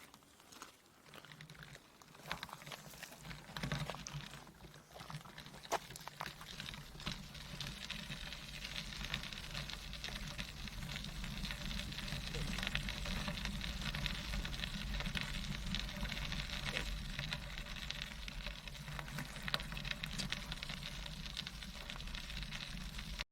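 Wind on the microphone and tyres rolling on the path as a tandem bicycle rides along, growing louder over the first several seconds and then holding steady, with scattered small clicks and rattles.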